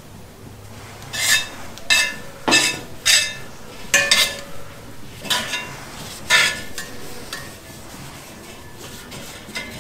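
Metal tongs clinking and scraping against a hot cast iron skillet while an oiled rag is wiped over the pan for seasoning. There are about eight sharp, briefly ringing clinks at irregular intervals over the first seven seconds, then quieter rubbing.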